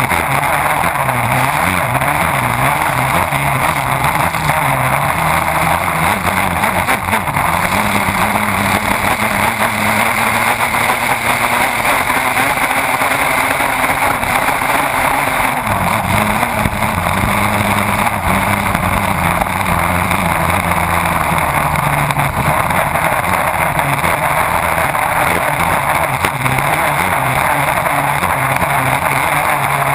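Race boat's engine running hard at speed, its note wavering slightly, under a steady rush of spray and wind over an onboard camera at the stern.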